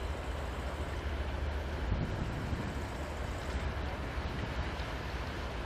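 Wind on the microphone over a steady low rumble, with a stronger low gust about two seconds in.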